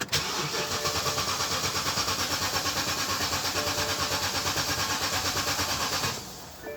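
2008 BMW X5 E70's engine cranking on the starter motor with a fast, even pulse, then stopping about six seconds in without firing: the car cranks but won't start.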